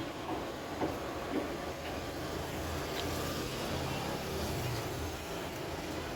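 Steady road traffic noise with a low rumble, and a few light knocks in the first second and a half.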